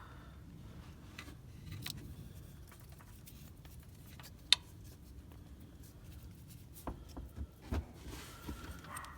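Engine of a 2008 Acura MDX running with a steady low rumble, with a few irregular clicks over it, the sharpest about four and a half seconds in.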